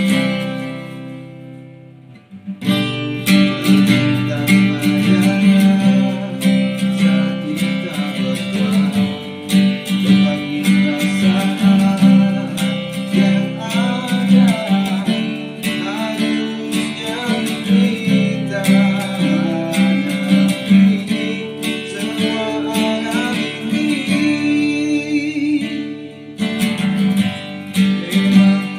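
Acoustic guitar being strummed: a chord rings out and fades at the start, then steady chord strumming picks up again after about two and a half seconds. A man's voice sings along over the guitar.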